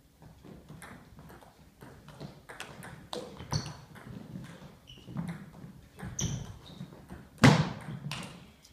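Table tennis rally: the plastic ball clicks sharply off the rackets and the table in an irregular run of hits, with a few short squeaks of shoes on the hall floor. One much louder hit comes about seven and a half seconds in.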